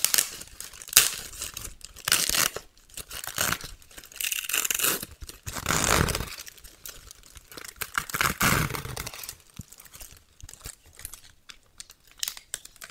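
Thin plastic wrapper of an individually wrapped sanitary pad being torn open and unfolded by hand, a string of irregular crinkling and tearing rustles.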